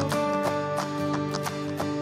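Instrumental background music: held notes over a steady, light beat.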